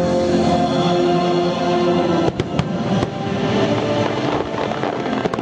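Fireworks show over loud music: sustained musical notes, then a quick run of sharp bangs about two seconds in, followed by dense crackling and one more bang near the end.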